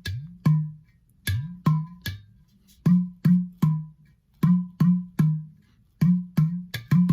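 Udu, a clay pot drum, played by hand in a repeating three-beat rhythm. Each stroke is a sharp slap over a low bass tone, some of the bass notes sliding down in pitch.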